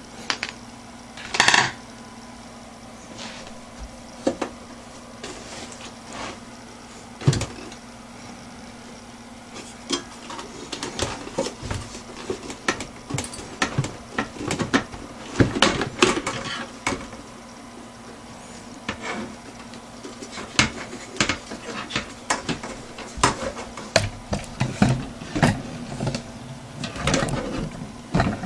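Irregular clicks, taps and light metallic clatter of a desktop computer's case and drive parts being handled, sparse at first and busier from about a third of the way in, over a faint steady hum.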